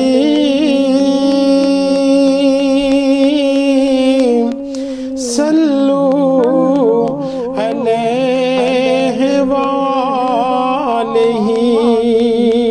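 A man singing a naat with no instruments, drawing out long wordless held notes with a wavering vibrato. There is a short break about five seconds in before the singing resumes.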